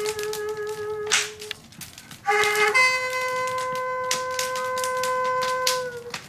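Daegeum, the Korean bamboo transverse flute, playing long held notes. The first note fades out about a second and a half in; after a short pause comes a brief note, then a long, steady, slightly higher note held for about three seconds that dips a little as it ends.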